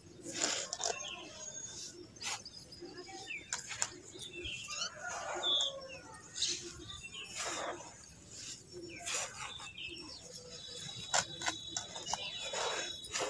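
Hands squeezing and crumbling dry red dirt clods: an irregular run of gritty crunches and rustles of falling soil. Birds chirp in the background.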